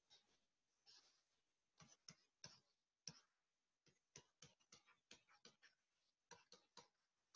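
Faint taps and scratches of a stylus on a pen tablet while handwriting, as a quick run of short strokes through the middle.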